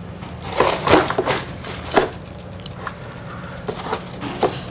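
Small plastic clicks, taps and rubbing as servo leads and connectors are handled and plugged into an RC receiver, a few scattered knocks with the loudest about one and two seconds in, over a steady low hum.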